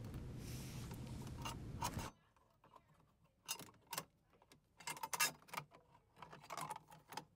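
A hand screwdriver driving screws into the air conditioner's sheet-metal electrical cover: scattered small clicks and scrapes of the screw and driver on metal. Before that, a low steady background hum cuts off abruptly about two seconds in.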